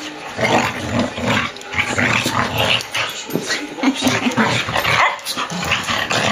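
A Samoyed and a poodle cross play-fighting, growling and barking at each other in a busy, irregular stream of dog noises.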